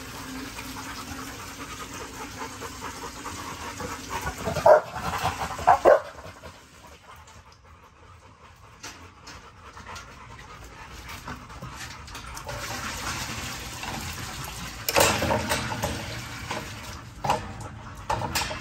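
American bully dogs panting in a kennel, with a few short barks: two about five seconds in and more near the end. Water runs steadily into a bucket for the first four seconds or so.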